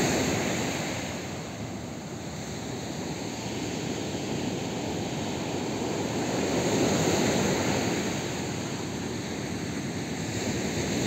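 Sea surf breaking and washing on a sandy beach: a steady rushing that swells and ebbs slowly, with one wave peaking about two-thirds of the way through.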